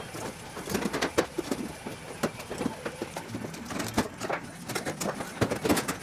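Irregular light clicks and knocks of hand work on an aluminium aircraft wing, such as fitting clecos and handling the sheet-metal skin.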